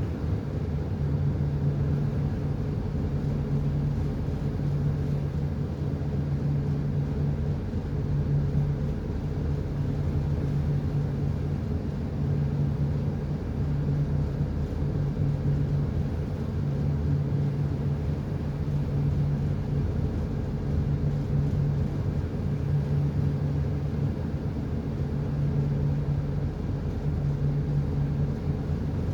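A ship's diesel engine running steadily: a low, even hum that swells and eases every second or so.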